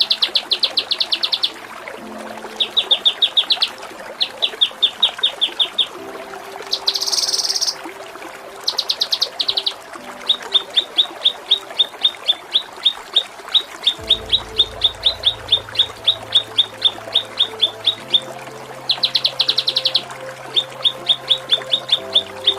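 Kinoi songbird singing rapid trills of short, high chirps, about eight notes a second, broken by a couple of harsh buzzy bursts. A low steady drone shifts pitch every few seconds underneath.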